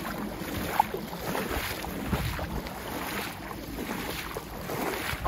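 Wind buffeting the microphone outdoors, a steady rumbling rush, with one short sharp squeak just under a second in.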